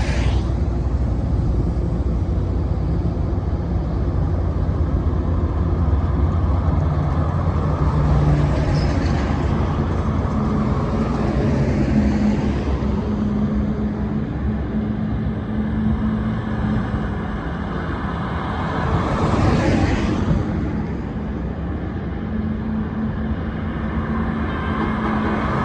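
Highway traffic: continuous tyre and engine noise with a low engine hum underneath, and vehicles swelling past close by now and then, about nine seconds in, about twenty seconds in, and again at the end.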